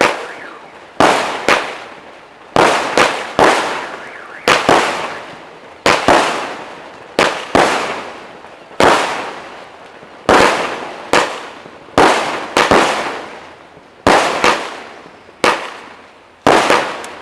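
Fireworks going off in a long irregular string of sharp bangs, about one a second, some in quick pairs or threes. Each bang trails off in a hiss that fades over about a second.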